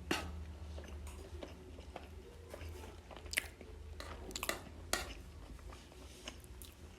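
Close-miked eating: a person chewing food, with a few sharp crunchy bites or clicks standing out (near the start, and three more between about three and five seconds in), over a steady low hum.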